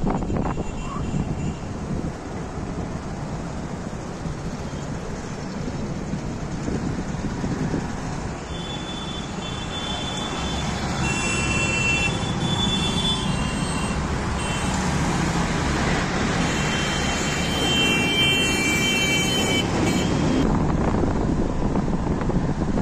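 Road traffic noise: vehicles running and passing on a road. Through the middle several high-pitched tones come and go.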